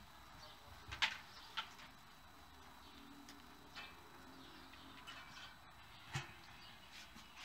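A few sharp clicks and knocks, the loudest about a second in and another near the end, as a bicycle's front wheel is handled and fitted into the dropouts of a suspension fork.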